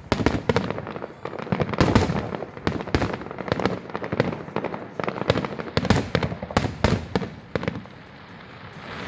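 Fireworks show: a rapid, irregular barrage of aerial shell bursts and crackling, many sharp bangs a second, easing off near the end into a fizzing crackle.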